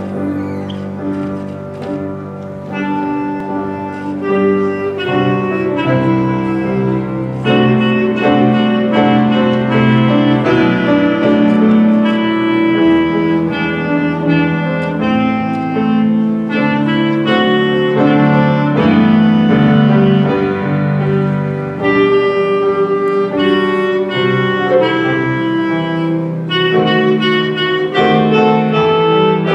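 Clarinet playing a melody over piano accompaniment.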